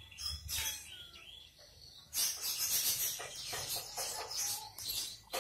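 Small birds chirping in the background, with short separate chirps at first and then a louder, dense chatter from about two seconds in.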